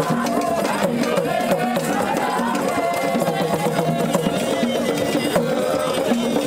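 Background music with a steady percussion beat of drum and wood-block-like knocks under a wavering melody line.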